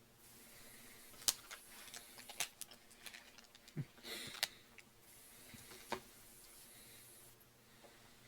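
Faint small handling and mouth noises: scattered sharp clicks and ticks, with a short rustle and a soft low thump about four seconds in.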